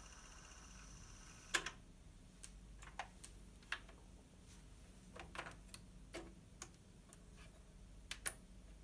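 Tandberg TCD 330 cassette deck's tape transport running with a faint steady hum, which stops at a loud mechanical click about a second and a half in. A string of sharp clicks from the deck's keys and cassette mechanism follows. Near the end come two louder clicks as the cassette door is opened and the tape taken out.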